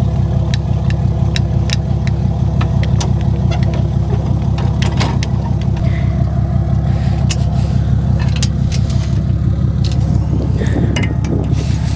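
A motor vehicle's engine running steadily with a loud, even low rumble and scattered light rattles and clicks, holding the same pitch throughout.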